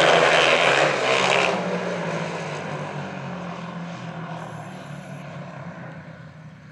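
Single-cylinder 500cc speedway motorcycle engine running hard, loud for the first second or so, then fading steadily as the bike rides away around the bend.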